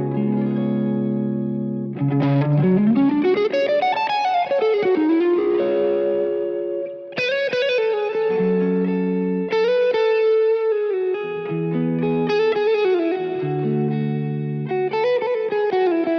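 Vola OZ RV TNC electric guitar played through effects: a melodic lead line with bent notes and a long upward pitch glide about two seconds in, over sustained chords.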